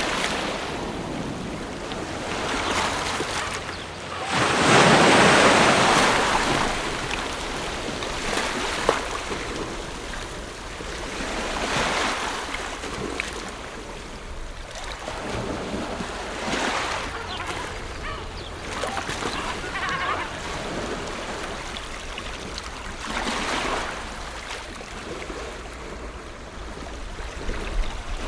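Ocean surf: waves breaking and washing up the shore, coming in as slow surges every several seconds, the biggest about five seconds in.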